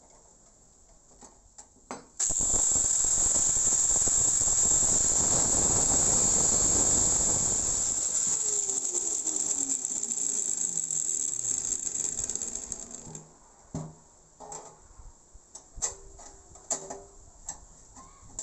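Angle grinder with a cutting disc cutting a slot in a steel plate: a sudden start about two seconds in and a loud, steady high whine. It is switched off and winds down with a falling pitch, stopping a few seconds later, and light clicks and knocks follow as the steel parts are handled.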